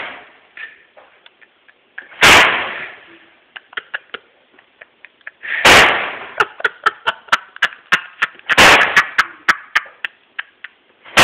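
A microwave oven being smashed: three loud crashing blows about three seconds apart, with many smaller sharp clicks and rattles between them as the casing and loose parts take the hits.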